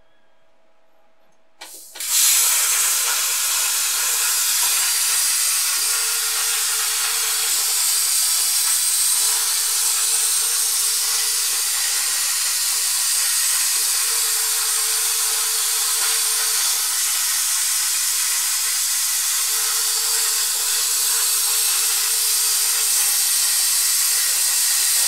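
CNC plasma cutter torch arc striking about two seconds in and then cutting sheet metal: a loud, steady hiss that runs on without a break.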